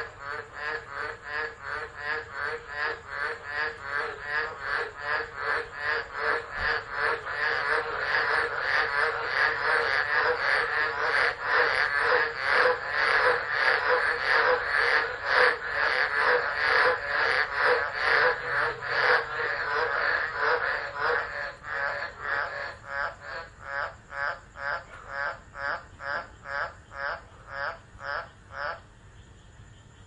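A chorus of frogs calling in a steady rhythm of about two calls a second, loudest in the middle. The chorus thins out after about twenty seconds, and the calls stop shortly before the end.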